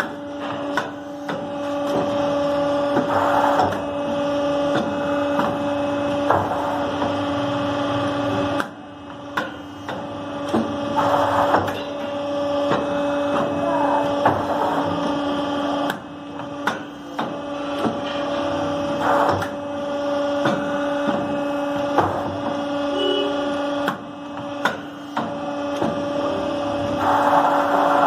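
Three-axis CNC pipe bending machine working through a bending cycle on copper tube: a steady hum from the running machine, with clicks and knocks as the feed and bend head move and short hissing surges about every eight seconds. The hum briefly drops three times.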